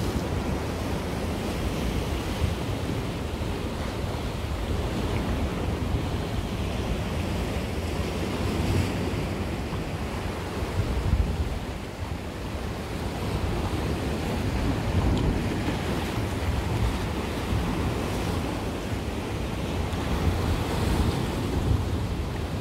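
Mediterranean sea waves breaking and washing against a rocky shore, a steady surging wash, with wind buffeting the microphone as a low rumble.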